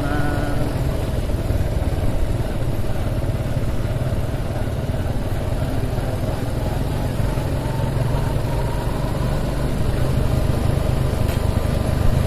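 Motor scooter engine running steadily while being ridden, heard from the rider's seat.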